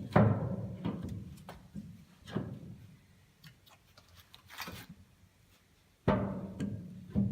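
Firewood logs being loaded into the firebox of a steel stove: about five hollow knocks, each ringing on briefly with a low drum-like tone.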